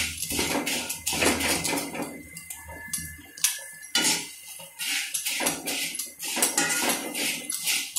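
Metal utensil scraping and stirring crisp fried corn flakes around an iron kadhai: runs of quick scrapes and dry rattles, with a short pause and a single clack in the middle.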